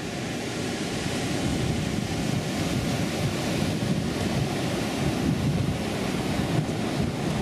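Ocean surf breaking and washing up the beach in a steady wash, with wind buffeting the microphone.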